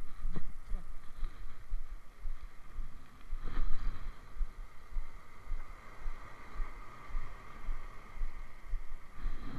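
Muffled rumbling and irregular bumping of wind and handling noise on a phone microphone wrapped in plastic, with one louder knock about three and a half seconds in.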